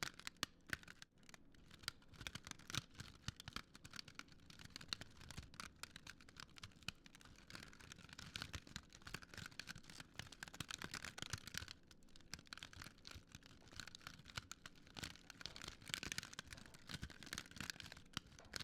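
Wood fire crackling, with many small irregular pops and snaps over a soft hiss.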